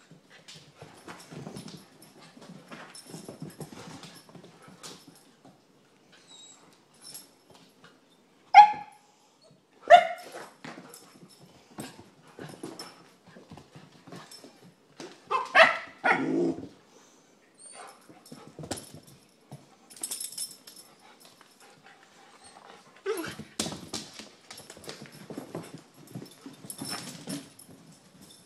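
Dogs playing in a house: a dog gives single sharp barks about nine and ten seconds in, then a quick run of barks around sixteen seconds. In between, paws click and scuffle on the floor.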